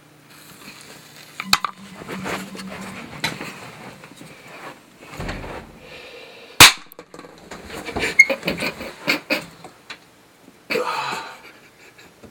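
A firecracker goes off inside a bottle with a single sharp bang about six and a half seconds in, by far the loudest sound. Around it are scattered clicks and rustling, and after it a run of sharp knocks and bedding rustling.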